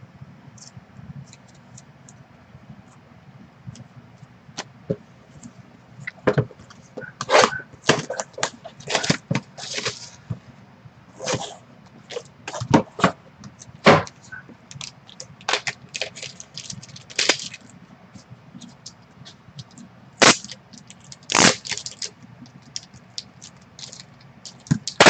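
Hard plastic trading-card holders clicking and knocking irregularly as they are handled and set down, with short bursts of rustling.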